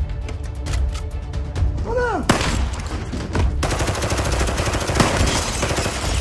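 Gunfire in a film action scene: rapid, repeated shots throughout, turning into dense, continuous fire a little past halfway, with a music score underneath.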